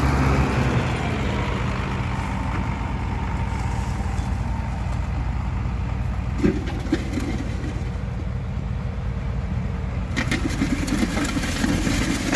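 Farm tractor engine running steadily as it pulls a disc implement through the roadside ditch, with scraping and clatter near the end.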